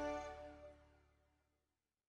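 Background music on held, sustained notes, fading out and gone about one and a half seconds in.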